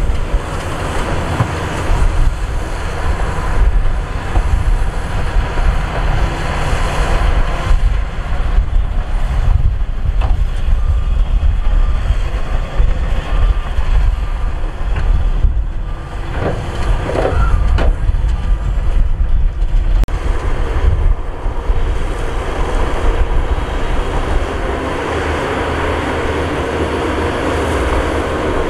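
Heavy diesel earthmoving machinery, a bulldozer and dump trucks, running under load as a loud, deep, uneven rumble with scattered clanks and rattles.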